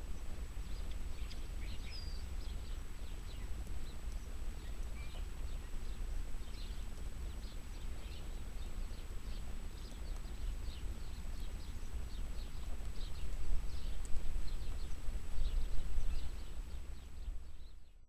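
Outdoor ambience of many birds chirping and calling in short repeated notes over a steady low rumble, getting louder in the last few seconds. A faint steady high-pitched whine sits underneath.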